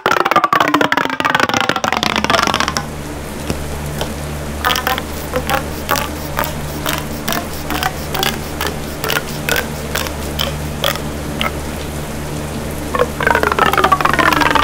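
A siren-like wailing sound effect, a pitched wail with several overtones sliding downward, for the first couple of seconds and again near the end. Between the wails, a low steady drone with regular clicks about twice a second.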